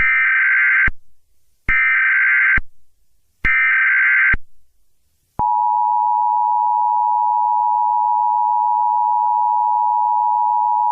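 Emergency Alert System tones: three short SAME header data bursts, each just under a second, evenly spaced. About halfway through, the steady two-tone EAS attention signal (853 and 960 Hz) starts and holds.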